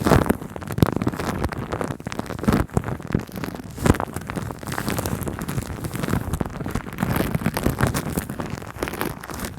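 Shaving cream foam being squished and rubbed directly on a microphone, a continuous dense crackling with irregular wet pops and clicks.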